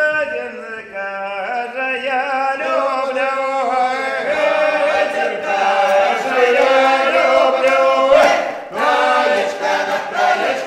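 Unaccompanied group singing of a Belarusian traditional folk song, several voices together in long drawn-out lines, with a short break between phrases about eight seconds in.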